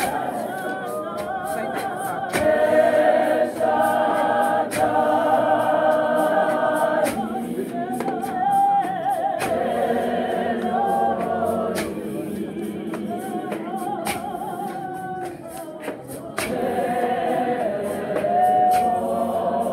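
Unaccompanied choir singing in harmony, with long held chords that shift and swell, and sharp percussive beats through the singing.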